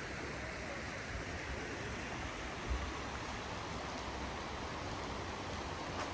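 A stream running with a steady, even rush of water, and one brief low thump about halfway through.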